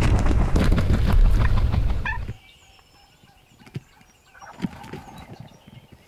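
Arrow-shot wild turkey gobbler flopping on the ground, its wings beating hard and fast against the dirt. About two seconds in it gives way to a much quieter stretch with a few soft wing thumps and faint chirps.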